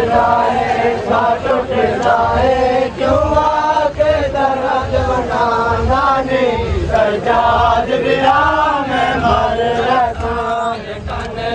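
Men's voices chanting a noha, a mourning lament, in long sung phrases, with rhythmic seena zani matam: bare chests slapped by hand in unison, a dull thump on each beat.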